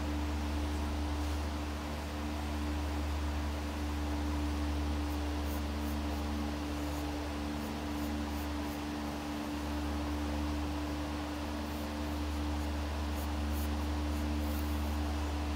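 Steady low hum with a faint steady higher tone, and over it the light scratching of a pencil sketching on paper, a few strokes more noticeable near the end.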